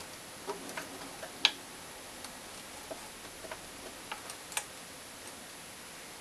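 Light, irregular metallic clicks and ticks of a thin oil ring rail being worked by hand into a piston's oil ring groove, under the expander-spreader; the sharpest click comes about a second and a half in.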